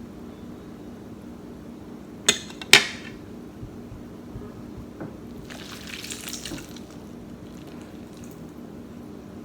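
Two sharp clinks of tableware about half a second apart, the second louder and ringing briefly, then a short rustling hiss around six seconds in, over a steady low hum.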